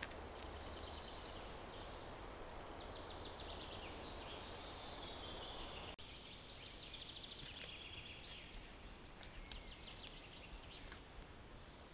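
Songbirds singing in the forest, with many short chirps and trills over a steady rushing background noise; the background drops slightly about six seconds in.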